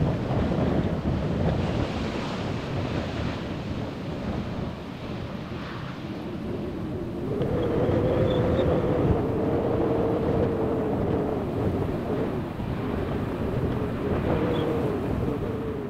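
Jet airliner on its landing approach: a low rumble with heavy wind buffeting the microphone, and a steady engine whine that comes in about halfway through.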